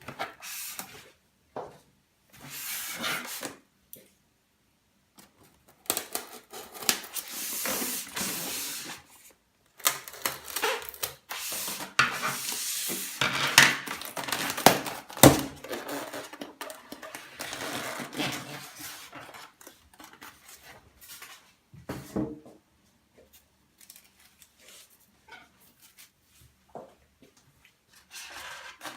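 Packaging of a boxed 1:18 model car being handled and opened: rubbing and scraping in uneven bursts with short pauses, and occasional knocks, a sharp one about fifteen seconds in.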